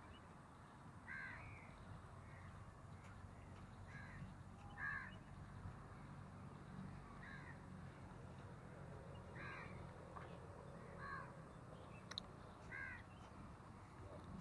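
Faint crows cawing, a string of short separate caws every second or two, with one sharp click near the end.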